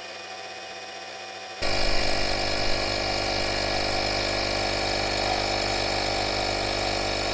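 AstroAI 12-volt portable tire inflator's compressor running steadily, pumping an SUV tire almost up to its 35 PSI set point. It is fairly faint at first, then becomes much louder and closer about a second and a half in.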